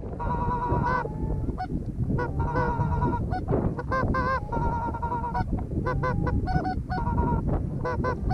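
Canada goose calls blown by hunters: rapid, repeated short honks and clucks, some with a quavering warble, calling to geese in flight.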